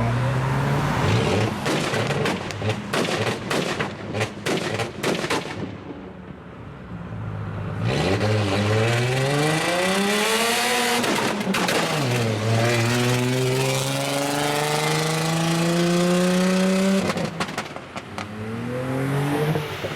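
Tuned car's exhaust crackling and banging in a rapid string of pops for the first few seconds, then the engine pulls hard in rising pitch, the pitch dropping at gear changes about halfway and again near the end.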